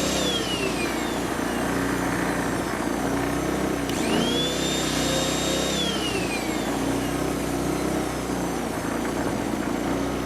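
Hyundai EFI2500SEI inverter generator running under load. Its engine speed falls away in the first second, rises quickly about four seconds in, holds for under two seconds, then eases back down. The speed follows the load without hesitation, an automatic throttle that the owner takes for a built-in eco mode.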